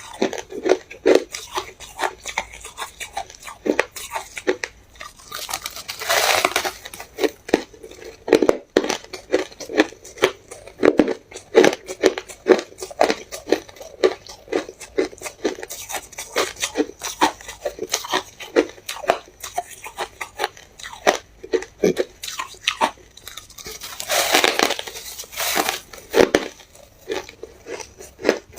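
A person chewing hard ice cubes close to the microphone: a steady run of sharp, quick crunches, with two longer grinding crunches, about six seconds in and again near the end.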